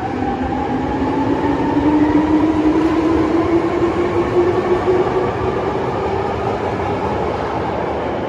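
Maroon Hankyu through-service train pulling out of an underground station and accelerating. The traction motors give a rising whine over the wheel and track rumble, and the whine eases off near the end as the last cars pass.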